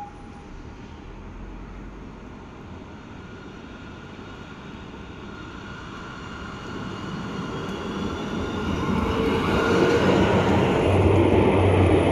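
Frankfurt tram approaching, its running noise growing steadily louder through the second half, with a whine of several tones over it.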